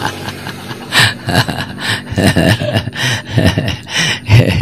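An old man's voice in short, indistinct spoken bursts.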